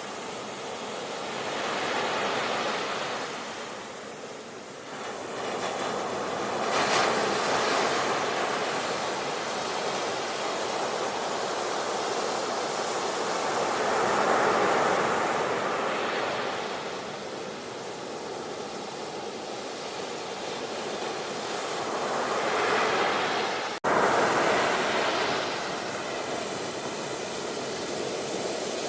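Sea waves breaking and washing up on the shore, rising and falling in slow swells several seconds apart. The sound cuts out for an instant about three-quarters of the way through.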